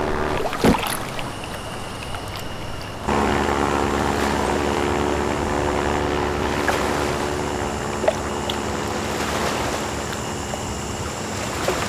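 Steady drone of a single-engine propeller floatplane in flight, growing louder about three seconds in, with a sharp click near the start.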